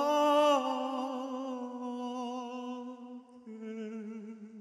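Male trot singer holding a long sung note with vibrato, then dropping to a lower held note about three and a half seconds in that fades away.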